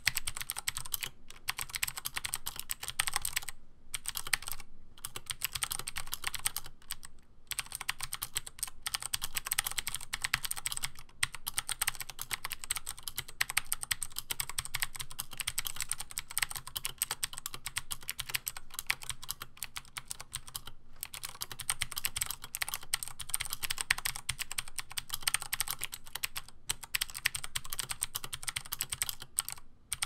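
Continuous fast typing on a Razer BlackWidow Ultimate 2013 mechanical keyboard with Cherry MX Blue switches: a dense stream of clicky keystrokes, broken by a few short pauses.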